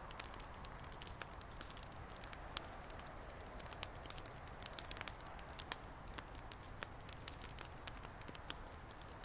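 Bonfire of a homemade effigy burning, with many sharp, irregular crackles and pops over a steady rush of flame.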